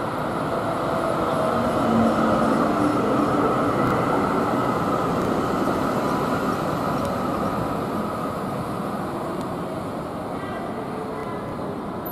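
Melbourne B-class articulated electric tram running past close by on street rails; its rolling and motor noise swells about two seconds in, then slowly fades.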